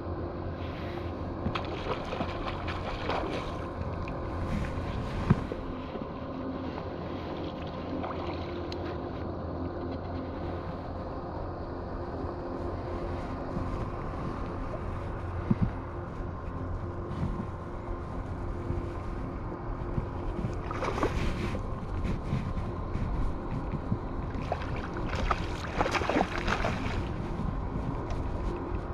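Wind rumbling on the microphone over a steady low hum, with scattered short clicks and rustles that bunch together near the end.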